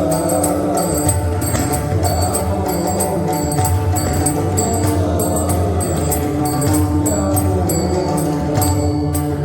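Devotional bhajan accompaniment: a pakhawaj drum playing a steady pattern under regular strokes of small metal hand cymbals, with a held melodic tone.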